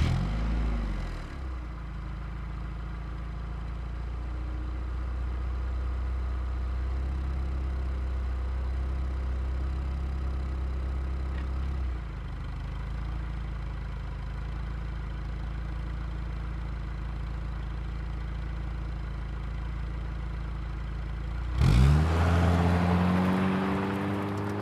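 A car engine catching with a short rev, then idling steadily. Near the end it revs up, louder, with its pitch climbing.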